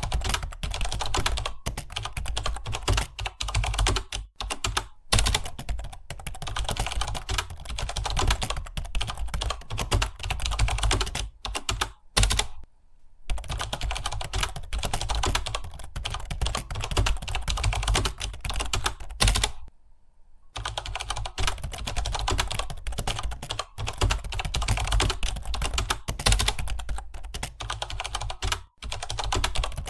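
Rapid, continuous typing on a computer keyboard, with keys clacking in quick succession and brief pauses twice.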